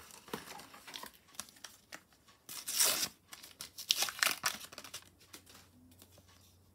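A paper sticker packet being torn open by hand and crinkled, the loudest tear about three seconds in, followed by a run of crackles as the stickers inside are handled.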